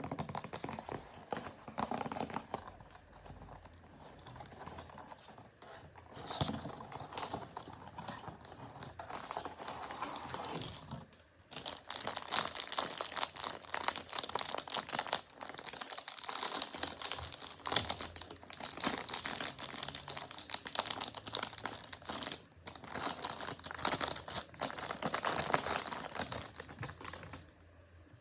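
Hands unboxing a blind-box toy: packaging crinkling and rustling with rapid small clicks and taps. The handling grows denser and louder about halfway through and stops shortly before the end.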